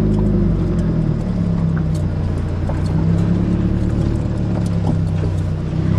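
Car engine running steadily at low speed, its pitch shifting slightly now and then.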